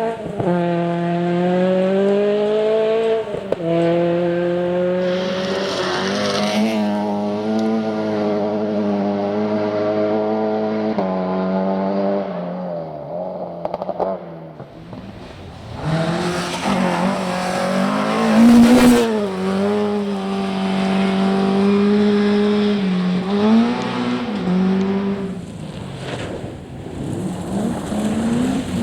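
Rally car engines at high revs passing one after the other, the pitch stepping up and down with gear changes and lifts. The first car fades about twelve seconds in; a second arrives a few seconds later with a burst of noise as it goes by.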